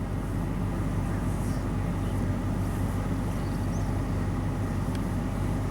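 Steady low hum under a constant background rush, with no distinct sounds standing out.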